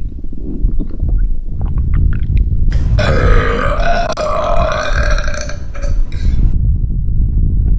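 A single long, drawn-out burp lasting about three and a half seconds, starting about three seconds in. Its pitch dips and then rises slightly. A steady low rumble runs underneath.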